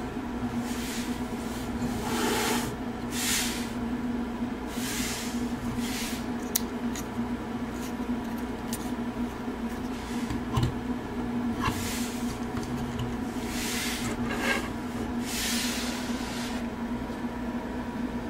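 Articulated robot-dog toy figures being handled and shifted on a table: repeated brushing swishes and a few light clicks as they are moved and set down, over a steady electrical hum.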